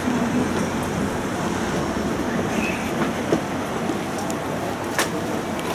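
Tram running along its rails, heard from inside the car: steady rolling rail noise, with a sharp click about five seconds in.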